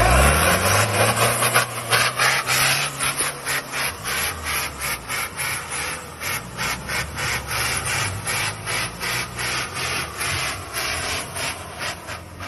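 Lifted off-road buggy's diesel engine revving hard, rising in pitch at the start, while its big mud tyres spin in wet grass and mud, throwing dirt with a fast, even pulsing of about three beats a second.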